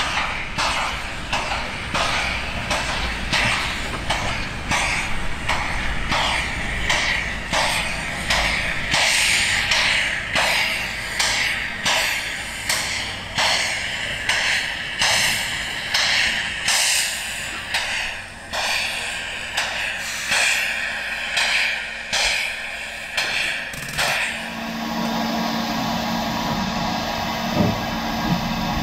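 Steam locomotive No. 92.2271, built by Krauss in 1919, working a passenger train past with its exhaust chuffing steadily at about two beats a second. About 24 s in this cuts to a steady running sound with a low hum.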